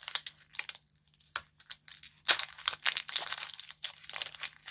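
Foil wrapper of a Pokémon trading-card booster pack crinkling and tearing as it is opened, in quick crackles that thin out briefly about a second in and get louder after about two seconds.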